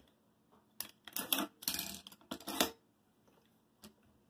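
AR-style rifle parts being handled: a run of sharp metallic clicks and short rattles, bunched in the middle, with one more click near the end.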